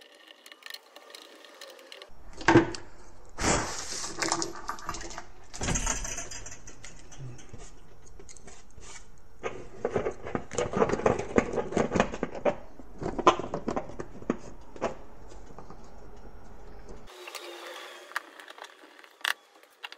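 Hands handling and fitting a plastic staircase assembly and its wires into a plywood board: scattered knocks and clicks with light rattling, busiest in the middle.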